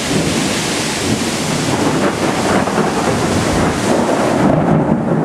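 Heavy wind-driven rain in a thunderstorm: a loud, steady rush with a deep rumbling low end. The hiss eases briefly near the end.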